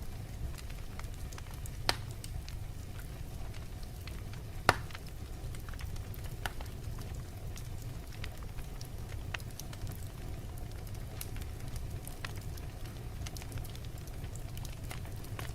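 Wood fire in a fireplace crackling steadily over a low rumble of the flames, with two louder pops about two and five seconds in.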